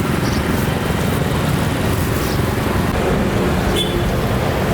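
Steady rumble of passing road traffic, with a brief faint clink near the end.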